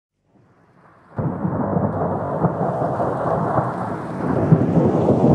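Thunderstorm: steady heavy rain with rumbling thunder. It fades in faintly, comes in suddenly about a second in and grows a little louder near the end.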